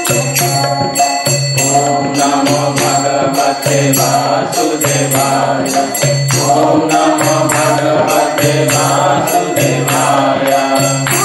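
A woman singing a devotional song about Krishna, accompanied by small hand cymbals keeping a steady beat over a low, repeating bass accompaniment.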